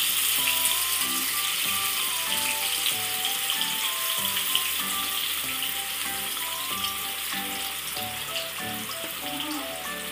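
Yogurt-marinated chicken pieces sizzling in hot refined oil in a kadai, the sizzle gradually easing as the oil cools around the meat. Background music with a simple melody plays underneath.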